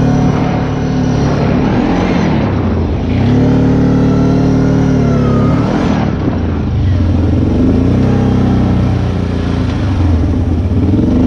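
ATV engine running under way, revving up and down, its pitch dropping and climbing again several times.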